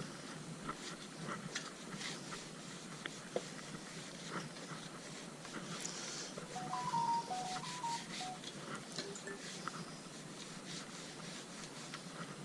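Cleaning a motorcycle wheel rim by hand: a run of light scratching, rubbing and small clicks, with a few short squeaks about two-thirds of the way through.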